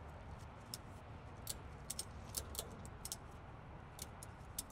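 Ratchet tie-down strap being tightened by hand: a dozen or so faint, sharp clicks of the ratchet, unevenly spaced, bunched together in the middle.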